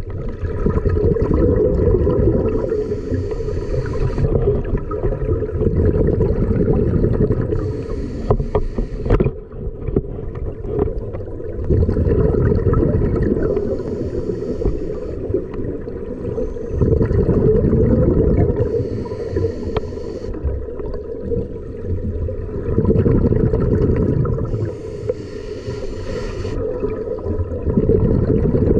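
A scuba diver breathing underwater through a regulator in a steady cycle: a hiss on each breath about every five to six seconds, alternating with a low rumble of exhaled bubbles.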